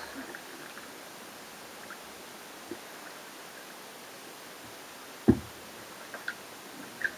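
Sea kayak being paddled on calm water, heard from a camera on the front deck: a faint steady hiss of water with light drips and ticks, and one sharp knock about five seconds in.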